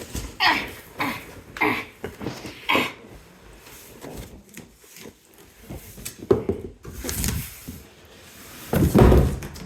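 Cardboard box and packing being handled and pulled apart: a quick run of scraping, rubbing sounds, then scattered rustles, and a heavy thump near the end.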